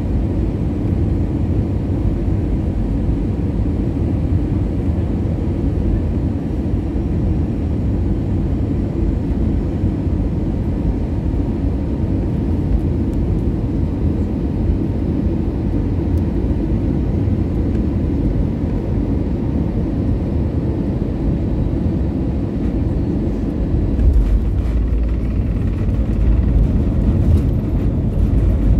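Airbus A320 cabin noise from a window seat over the wing on final approach: steady engine and airflow noise. About 24 seconds in, the main wheels touch down with a low bump, and the deeper rumble and rattling of the runway rollout begin.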